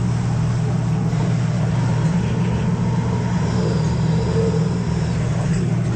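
Fishing boat's engine droning steadily, with a wash of wind and sea noise over it.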